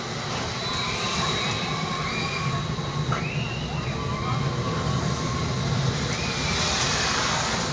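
Steady rushing wind on the microphone with ambient noise, high up on a Ferris wheel. A couple of faint distant calls or cries rise and fall above it, about three seconds in and again near the end.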